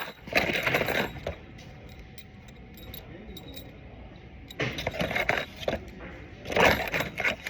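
Loose metal screws rattling and clinking in a partly emptied box as it is handled. The rattling comes in three short bouts: about a second in, around five seconds, and near seven seconds.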